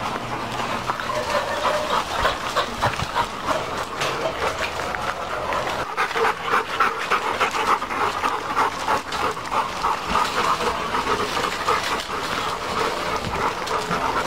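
Several Labrador-type dogs moving about on loose gravel: steady crunching of paws and steps on the stones, with dogs panting.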